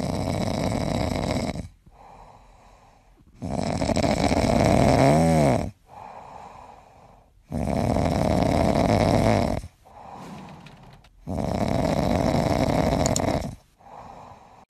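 A sleeping cat snoring: four long, loud snores about every four seconds, with quieter breaths between them.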